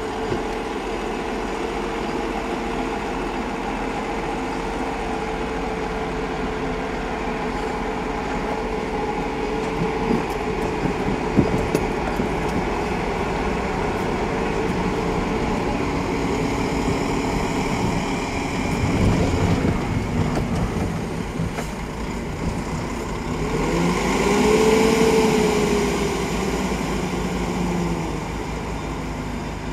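LMS Stanier Black Five steam locomotive running along the track: steady mechanical running noise with a held tone at first, swelling louder around the middle, and a pitched tone that rises and falls briefly near the end.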